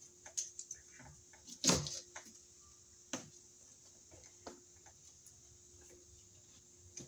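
A knife blade scoring and cutting the plastic sheath of a 10/2 electrical cable as it is stripped: scattered light clicks and scrapes, with sharper snaps about two and three seconds in.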